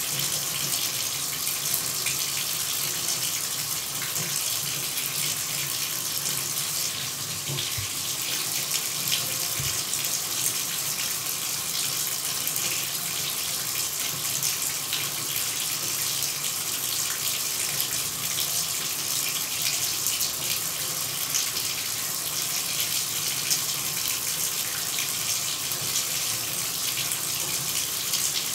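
Shower running: a steady hiss of spraying, splashing water, even and unbroken, with most of its sound in the high range.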